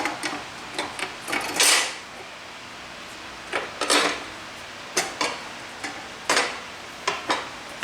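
Metal parts of a table saw being handled: irregular clinks and clanks, with a few louder knocks and a short scrape, as the cover is set back in place and its nuts are put on.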